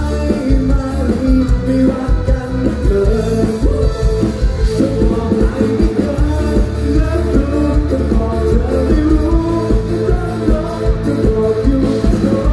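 Amplified live music with a man singing a song into a microphone over the stage sound system, with a strong, pulsing bass beat.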